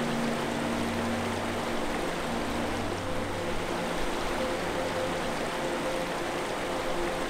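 Creek water rushing over rocks and small rapids: a steady, even hiss. Faint held low notes sit underneath.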